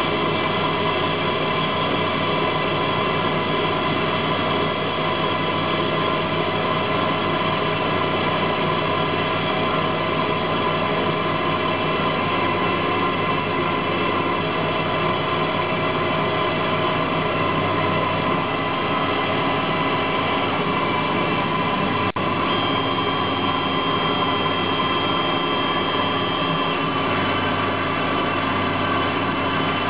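EMCO Turn 120 CNC lathe running under Mach3 control, its spindle and axis drives making a steady mechanical whine of several pitches over a noisy hum. There is a single click about 22 seconds in, after which the mix of tones shifts.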